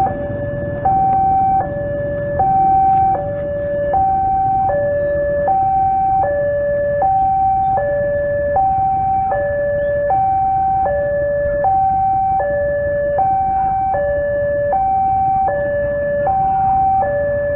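Railway level-crossing warning alarm sounding: an electronic two-tone signal alternating steadily between a higher and a lower tone, each held for under a second, the warning that a train is approaching the crossing.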